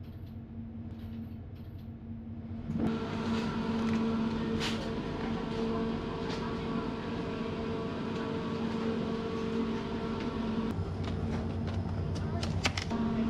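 Steady electrical hum of refrigerated store display cases, with several fixed tones, growing louder about three seconds in. Near the end come a few sharp crinkles of a plastic-wrapped sushi pack being put into a plastic shopping basket.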